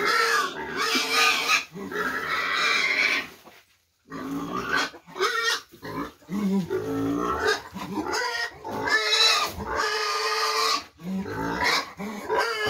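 Pig squealing at feeding time, long wavering calls one after another, with a short break a little before four seconds in.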